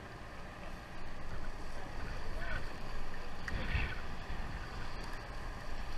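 Wind on the microphone and sea water washing along the hull of a sportfishing boat, over a steady low rumble.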